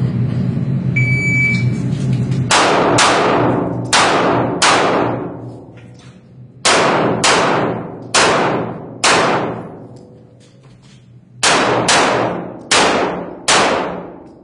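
A handgun is fired at an IPSC stage: about twelve shots in three quick strings of four, each shot ringing on. They follow a short electronic shot-timer start beep about a second in.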